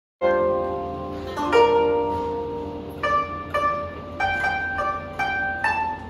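Koto, a Japanese long zither, being plucked. Several strings ring together at the start, then a slow melody of single notes follows, each one struck sharply and left to ring and fade.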